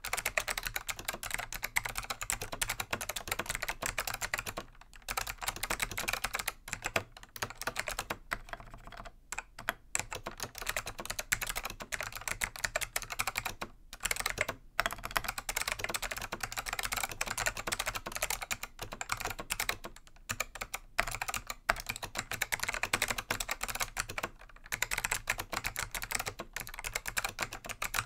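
Continuous touch-typing on a Dell AT101 keyboard with Alps SKCM Black switches that have been click-modded, with the retaining tabs of the tactile leaves removed so each keystroke gives a sharp click. It is a dense stream of rapid clicky keystrokes, broken by a few brief pauses.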